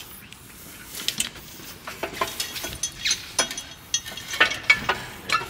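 Scattered metallic clicks and clanks as the BMW E46's freed rear subframe is lowered down from under the car, irregular knocks starting about a second in.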